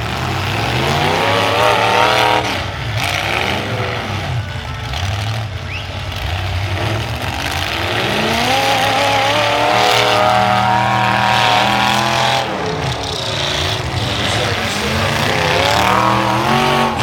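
Demolition derby car engines revving hard over a steady low engine drone, their pitch climbing and dropping again and again, with several engines overlapping.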